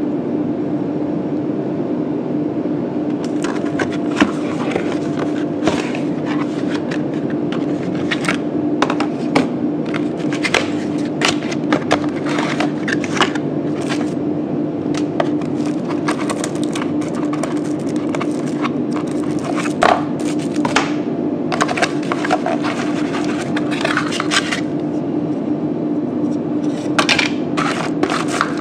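Cardboard box and plastic packaging being handled: scrapes, crinkles and clicks as the box is opened and its bagged contents are moved about. A steady low hum runs underneath.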